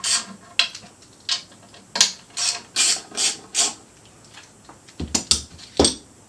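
Hand ratchet wrench clicking in short back-and-forth swings while bolts are loosened along the valve cover of a 454 big-block engine, with a few sharper metal clacks near the end.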